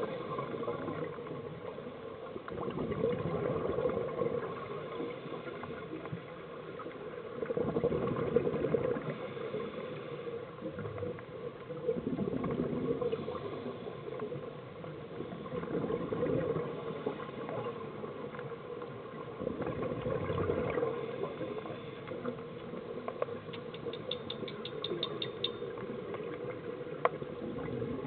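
A scuba diver's breathing heard underwater: the regulator's exhaled bubbles gurgle out in bursts about every four seconds. About three-quarters of the way through comes a quick run of about ten faint ticks.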